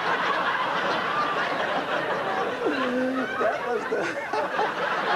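An audience laughing and chuckling together at a joke, a dense, sustained wash of laughter.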